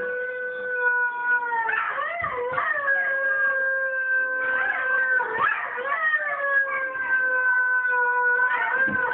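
Whippets howling in long, held notes, played through a laptop's speakers, with short wavering, overlapping howls breaking in between the long notes.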